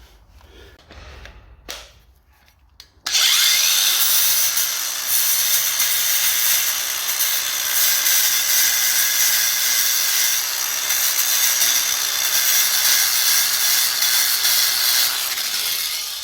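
A power tool cleaning back the steel of a classic Mini door hinge where the snapped studs were drilled out, a steady high abrasive hiss that starts about three seconds in after a few light knocks and winds down near the end.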